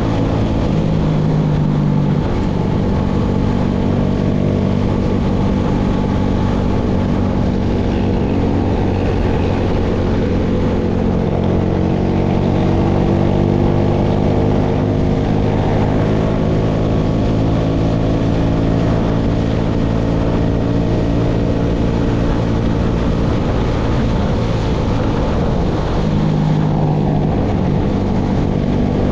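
Engine of a hay-baling rig running steadily, its pitch drifting slightly up and down.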